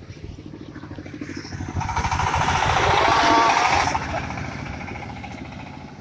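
Engine of a wheeled corn sheller machine running as it drives along a road on a test run. It gets louder as the machine passes close, loudest about two to four seconds in, then fades as it moves away.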